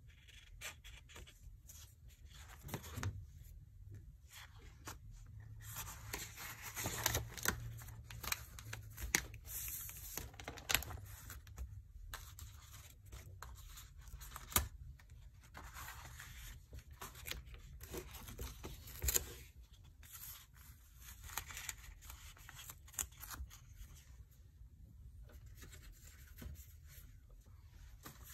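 Watercolour paper being handled: sketchbook pages turned and loose sheets shuffled and slid, in irregular rustles and scrapes with short quiet gaps.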